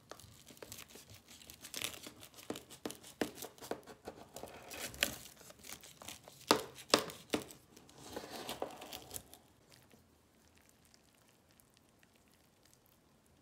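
A large knife cutting through the crisp baked crust of a cornmeal-flour spinach pie (lakror) in a metal pan: a run of crackling crunches and clicks that stops about ten seconds in.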